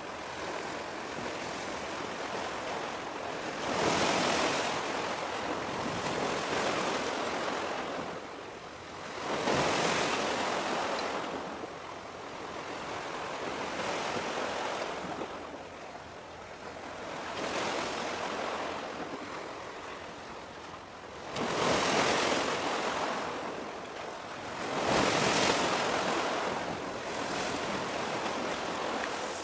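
Sea waves washing in against the shore, a steady wash of water noise that swells up loudly four times as bigger waves come in.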